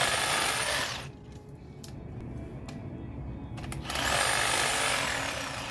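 A power trimmer cutting apricot tree branches: it runs in two bursts, the first about a second long and the second about a second and a half, each with a high whine that falls away as the motor stops.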